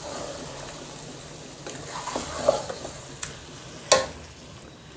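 Marinated chicken pieces sizzling in hot oil in a nonstick kadai while a spatula stirs and scrapes them through the onion and ginger-garlic masala. A sharp clack of the spatula against the pan just before four seconds in is the loudest sound.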